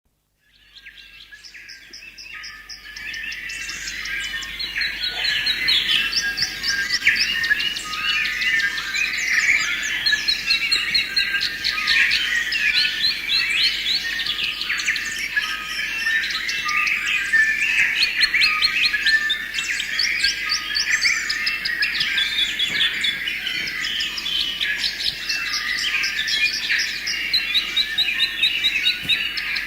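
A chorus of many songbirds chirping and trilling over one another, fading in over the first few seconds.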